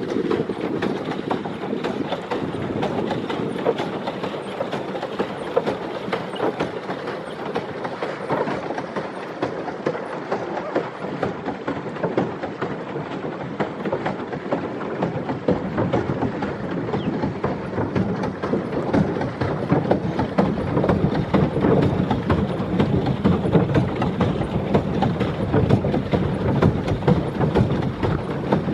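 A pedal boat's paddle wheels churning the water in a steady run of splashes and clicks.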